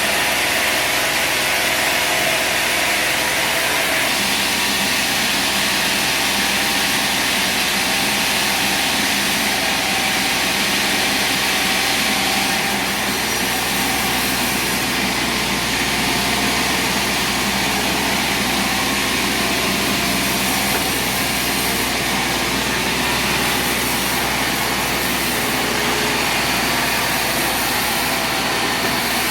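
Sawmill running steadily, its engine and saw giving a continuous, even machine noise with a small drop in level about twelve seconds in.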